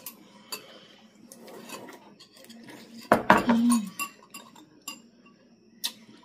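Metal spoons clinking and scraping against ceramic soup bowls, with noodle soup being eaten. A louder slurp with a short hum comes about three seconds in.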